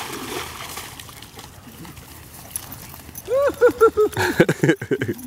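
Faint splashing, then a dog gives a quick run of short, falling yelps in the second half, about five a second.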